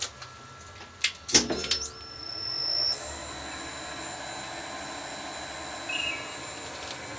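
Elevator traction machine: a sharp clack about a second in, then the machine running with a steady hum and a thin high whine that swells over about a second and then holds level.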